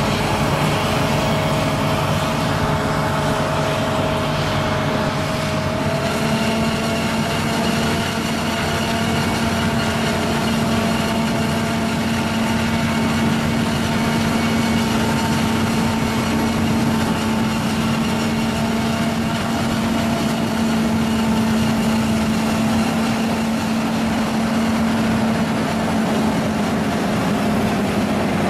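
A New Holland self-propelled forage harvester chopping maize, its engine and chopper running steadily under load, mixed with the tractor hauling the silage trailer alongside. A lower steady hum comes in about six seconds in.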